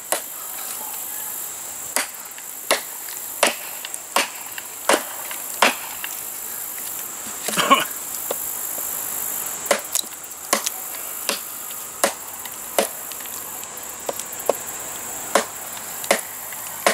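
Ontario Knife Company SP8 machete chopping into a log: a run of sharp blade strikes into the wood, about one every three quarters of a second, with two-second gaps around the middle and one heavier strike between them.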